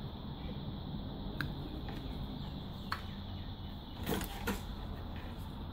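Low steady electrical hum with a few faint clicks and taps of small handling at a workbench.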